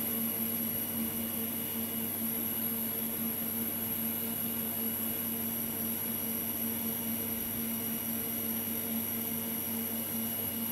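A steady machine hum: a constant low drone with a thin high whine above it.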